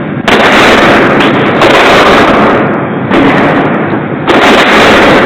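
Gunshots at a shooting range, several shots a second or more apart, so loud that each runs into a long, distorted blast of noise with little pause between.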